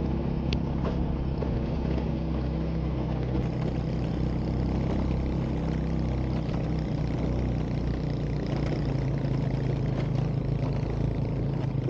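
A vehicle's engine running steadily while on the move, with road and wind noise over it.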